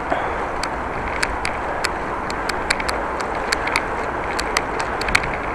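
Steady rushing noise of a bicycle ride, with sharp clicks at irregular intervals, roughly three a second.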